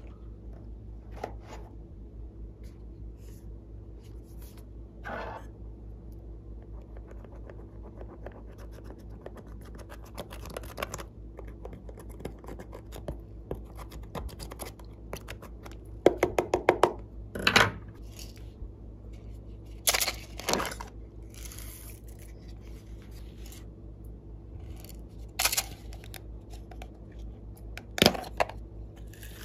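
Glossy slime being worked by hand, with sticky crackling and small popping sounds over a steady low hum. About sixteen seconds in comes a quick run of pops, followed by a few louder short squelches.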